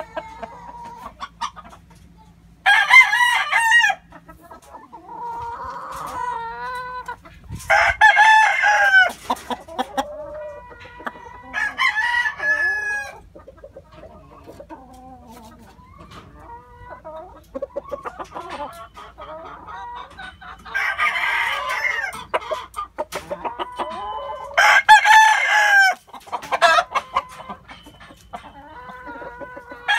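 Gamefowl roosters crowing in turn, about five loud crows of a second or so each, with quieter clucking in between.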